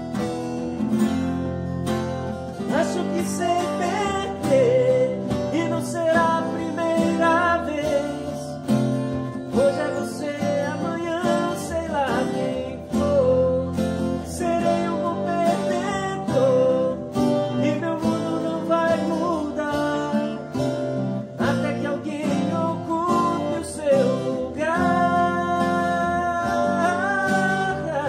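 Three acoustic guitars played together, chords strummed under a picked melody line with sliding notes.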